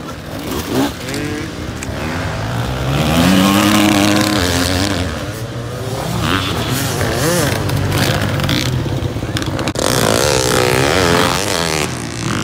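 Enduro dirt-bike engines revving as riders pass, the pitch climbing and dropping several times. The loudest pass comes about three to four seconds in.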